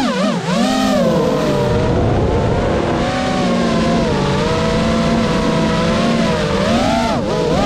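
GEPRC Mark 5 FPV quadcopter's brushless motors whining in flight. The pitch dips and rises sharply with throttle about half a second in and again near the end, and holds steadier in between.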